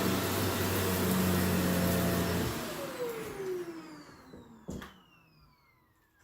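Upright vacuum cleaner running, then switched off about two and a half seconds in; its motor whine falls steadily in pitch as it spins down. A single knock sounds near the end.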